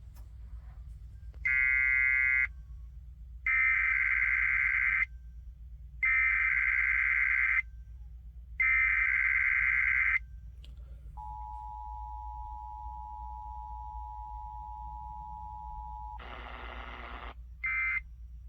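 Emergency Alert System SAME header: four loud bursts of warbling digital data tones. Then the two-tone EAS attention signal holds steady for about five seconds, a brief burst of noise follows, and a short end-of-message data burst comes near the end.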